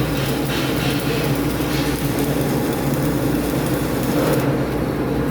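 Stick (electrode) welding: the arc crackles and sizzles over a steady low hum from the welding machine, and the crackle stops about four and a half seconds in, leaving the hum.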